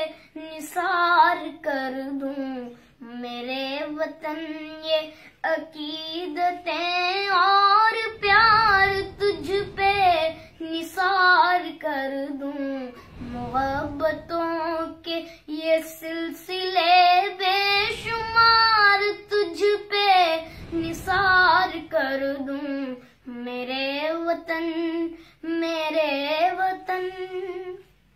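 A single high, child-like voice singing a melodic song in long, wavering phrases with short breaths between them.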